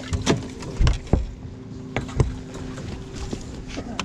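Several sharp knocks and thumps as a person moves about on a bass boat deck, at the open livewell and across to the console seat, with a steady low hum running underneath.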